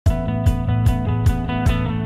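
Background music with a steady drum beat, about two and a half beats a second, starting right at the beginning.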